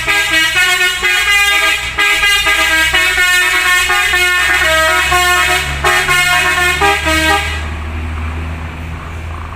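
Indonesian bus 'telolet' musical air horn playing a quick tune of stepped notes, cutting off about seven and a half seconds in and leaving a low rumble.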